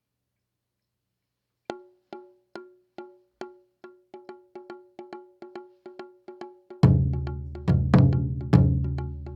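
Taiko drumming opening: sharp, ringing wooden clicks start about two seconds in and speed up steadily. Near the end, large taiko drums come in with deep, loud strikes about a second apart under the clicks.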